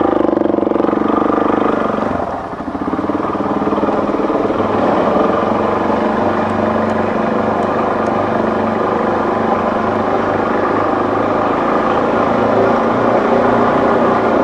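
Dirt bike engine running under way, heard close up from the rider's own machine. The engine sound dips briefly about two seconds in, then runs on steadily.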